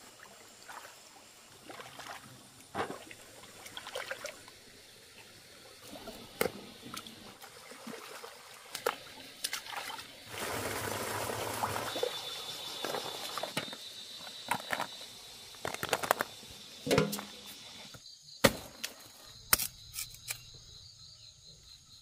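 Hands splashing and scooping through shallow stream water and mud, with a louder gush of water about halfway through and shellfish clacking into an aluminium basin. Near the end the water sounds stop, and a few sharp cracks stand out against quieter surroundings.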